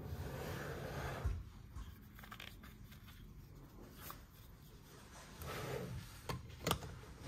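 Hard plastic parts of a Dr. Eggman robot toy handled and rubbed together, with a few small clicks and knocks as its jetpack piece is pulled apart; the loudest click comes near the end.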